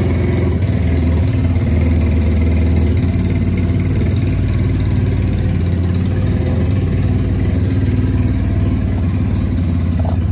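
Single-cylinder, air-cooled 250cc Lifan engine of a KTM Duke replica motorcycle running steadily at idle through its company-fitted exhaust, just after being started.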